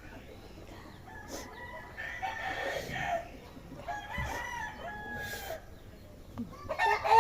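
A rooster crowing twice, each call held steady for about a second and a half, followed near the end by a louder, shorter call.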